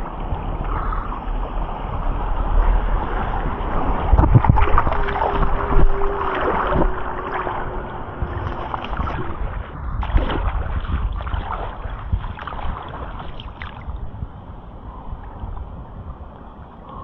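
Shallow river water rushing and gurgling around an inflatable air mattress drifting downstream, with wind buffeting the microphone and scattered knocks and rubbing from the camera being handled.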